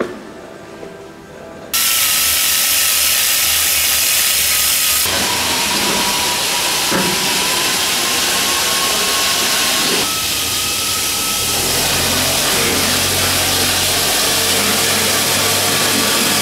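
Loud, steady machine noise, a hiss with a faint whine running through it, starting suddenly about two seconds in.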